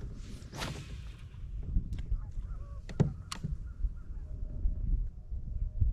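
Faint calls of distant birds over a low rumble, with a few sharp knocks about two and three seconds in.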